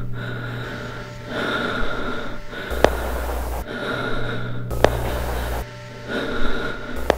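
A person's heavy, labored breathing: one breath after another, each about a second long, with short gaps between. A low hum runs under parts of it, and three sharp clicks come through about three, five and seven seconds in.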